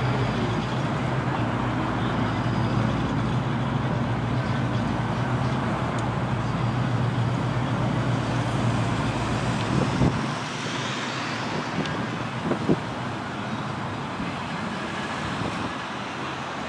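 Cars driving past through a parking lot, with a steady low engine hum and road noise that drops away about ten seconds in. A couple of short knocks follow.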